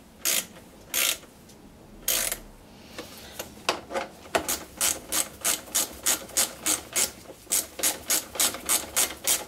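Small socket ratchet clicking as the carburetor mounting bolts are tightened down: a few separate clicks at first and a short rasp about two seconds in, then from about four seconds in a steady run of about three clicks a second as the handle is swung back and forth.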